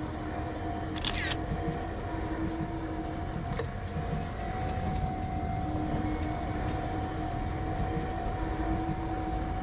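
A steady low rumble with a constant hum, as of a train or other vehicle running, and a camera shutter sound about a second in.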